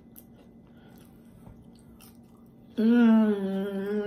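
Faint closed-mouth chewing of a crispy onion ring, then, a little under three seconds in, a loud, long hummed "mmm" of enjoyment with the lips closed.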